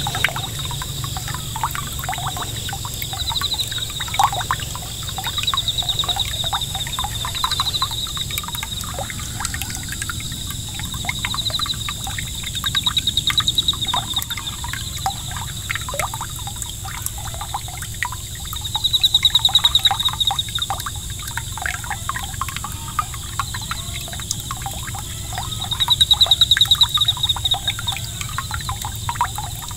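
A small 5 V solar fountain pump's jet of water splashing back onto the pond surface, a steady patter and trickle of droplets. A high, rapid trill comes and goes several times over it, loudest about two-thirds of the way through and near the end.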